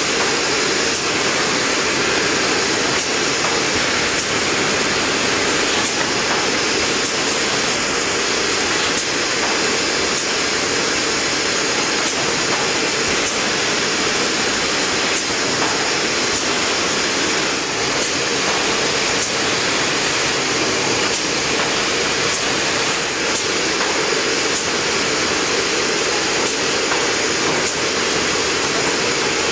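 Fidia VAMPA TREVI shopping-bag machine running at speed: a steady, loud, hissing mechanical whir of rollers and conveyors that does not let up.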